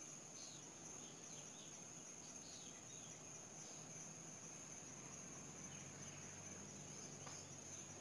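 Faint, steady, high-pitched insect trill, with a few short faint chirps over it.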